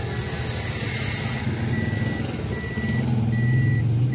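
Car parking-sensor or reversing beeps: a steady high beep repeating about once a second, over the car's engine running, which gets louder briefly about three seconds in as the car manoeuvres into a parking spot.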